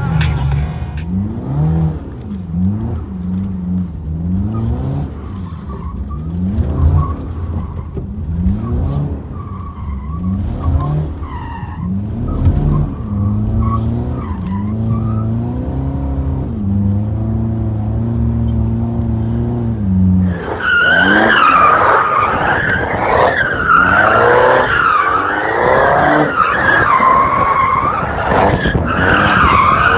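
BMW engine heard from inside the cabin, revving up through the gears, its pitch climbing and dropping back with each shift. About twenty seconds in it gives way to loud, wavering tyre squeal from a car drifting, with the engine revving beneath it.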